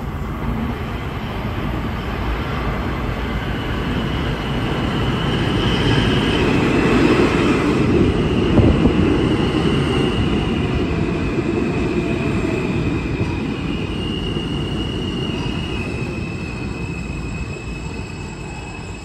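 An R160 subway train pulls into an underground station and brakes along the platform. The low rumble of wheels on rail grows to its loudest about halfway through. From about a third of the way in, steady high-pitched wheel squeal sets in and carries on as the train slows, while the rumble fades.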